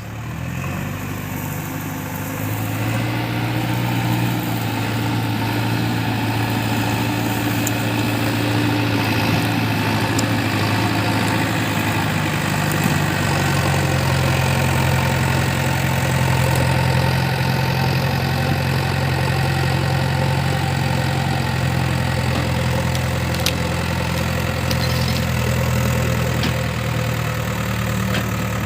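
JCB 3DX backhoe loader's diesel engine running steadily, picking up over the first few seconds and then holding an even note. A few faint ticks come in about two-thirds of the way through.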